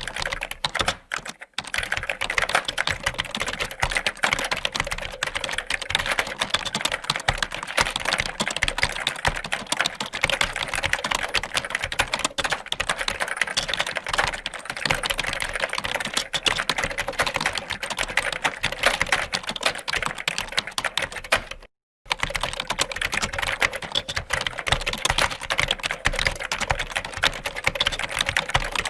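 Fast, continuous typing on a computer keyboard: a dense run of key clicks. It thins briefly about a second in and breaks off to silence for a moment about two-thirds of the way through.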